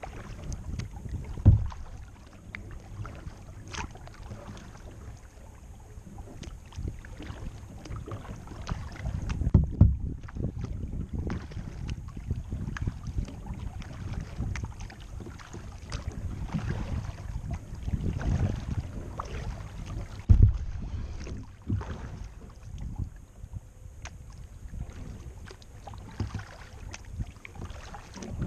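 A kayak being paddled on calm water, heard from a camera on its bow: small splashes and drips of paddle strokes over a low rumble, with a dull thump three times, about two, ten and twenty seconds in.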